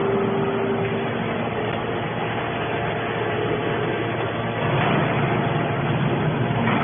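Hydraulic steel can baler running: a steady machine hum with a few constant tones, the low hum getting louder about five seconds in.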